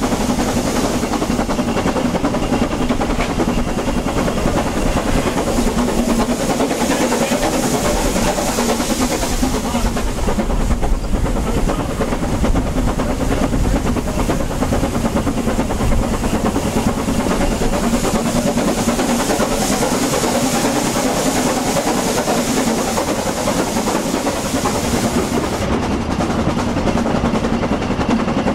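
Narrow-gauge steam train running, heard from an open carriage window: a steady, even running noise of the carriages on the track, with a low steady hum.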